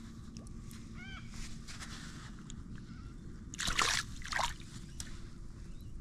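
Water splashing and sloshing twice in the middle as a small flathead is let go into ankle-deep water over a sand flat and swims off. A short chirp about a second in.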